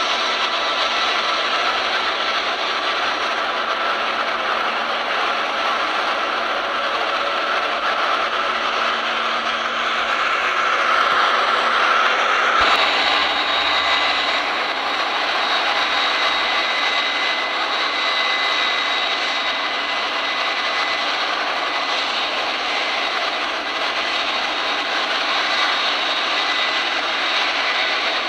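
Airliner engines running at an airport: a steady rushing noise with a high, thin whine over it. The sound changes abruptly about 13 seconds in, the whine shifting higher.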